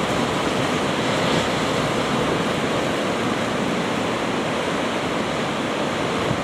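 Heavy ocean surf breaking and washing over lava rocks, a steady rush of foaming water.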